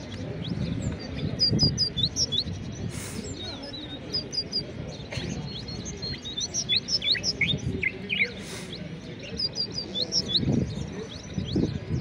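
Many caged songbirds chirping and twittering at once, with short, quick, high notes overlapping throughout. A low murmur of voices runs underneath.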